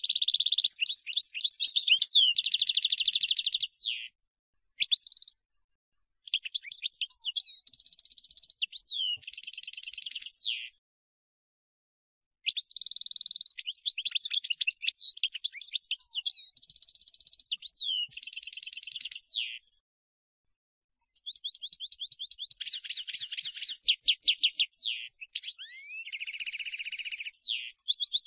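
European goldfinch (chardonneret) singing: rapid twittering chirps mixed with buzzy trills, delivered in phrases of several seconds separated by short pauses.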